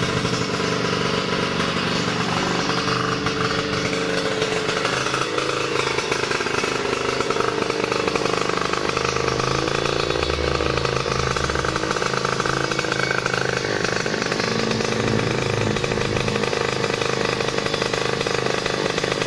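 Yamaha F1ZR's two-stroke single-cylinder engine, built to 116 cc spec, running steadily, its pitch drifting slightly up and down.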